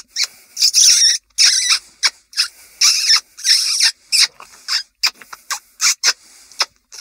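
Mouse squeaks made by sucking on the back of the hand, imitating a field vole as a call to lure a fox. It is a string of high squeaks, drawn out in the first half and shorter and quicker toward the end.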